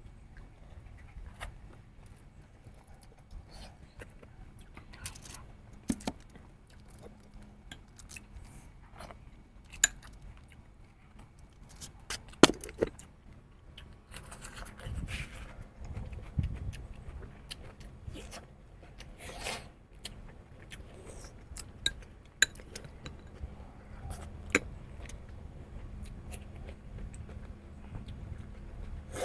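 Eating sounds of a person working through goat heads: scattered crunches, clicks and smacks of chewing and picking at meat and bone, with a few sharper, louder cracks about twelve seconds in.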